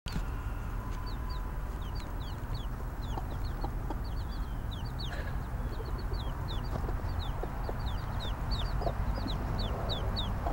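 Baby chicks peeping: a steady run of short, high, falling peeps, a few each second, over a low rumble.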